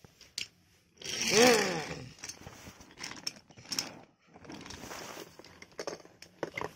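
A short vocal cry whose pitch rises then falls about a second in, followed by scattered clacks and rattles of toy trains being pushed along wooden railway track.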